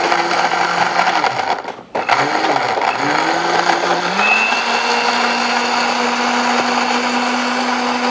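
Countertop blender running, blending grapes, carrot, ginger and orange with water into a smooth juice. It cuts out briefly about two seconds in, then spins back up, its pitch rising and settling into a steady, slightly higher hum.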